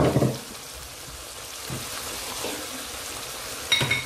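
Frozen mixed vegetables (carrots, peas and sweetcorn) sizzling steadily in hot oil in a pan, with a clatter right at the start and a few ringing metallic clinks near the end.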